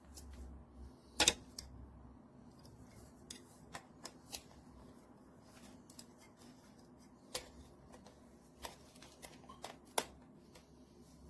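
Scattered light clicks and knocks from something being handled, the loudest about a second in and another near the end, over a faint low hum.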